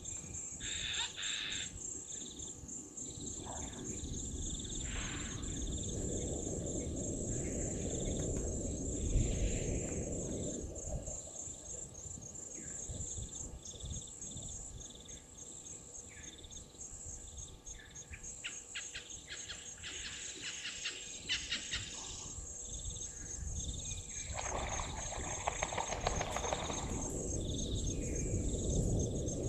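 Insects trilling steadily in a high pulsing chorus, with short bird chirps scattered through it. A low rumble swells twice, for several seconds each time.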